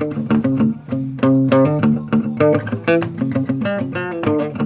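Guitar music with quick plucked notes over a bass line: the channel's own outro theme.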